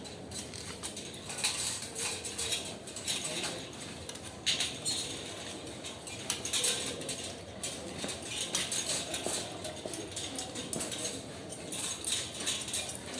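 Irregular light clicks, taps and metallic clinks, as of metal hardware or tools being handled.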